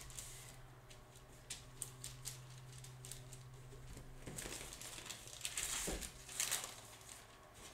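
Crinkling and rustling of a thin sheet being pressed by hand onto a wet acrylic painting and then peeled away, lifting paint off the surface. The rustling is loudest from about four to six and a half seconds in.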